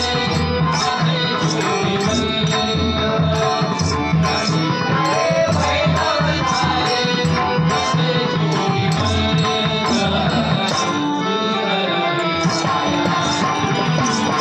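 Marathi devotional bhajan music for a slow-tempo abhang: hand drums (pakhawaj and tabla) keeping a steady rhythm, small hand cymbals striking about twice a second, and a harmonium holding the melody, with some singing.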